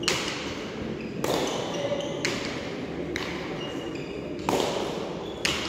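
Hard frontón ball (pelota dura) smacked by hand and cracking off the front wall and floor during a rally: six sharp cracks about a second apart, each ringing out with a hall echo.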